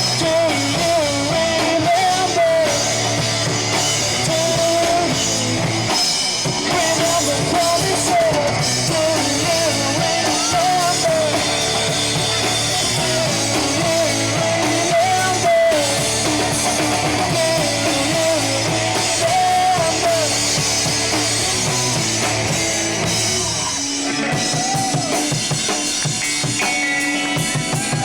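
Live rock band playing an instrumental passage: a wavering lead melody over drums and bass. The melody drops out about two-thirds of the way through, and the part turns drum-led near the end.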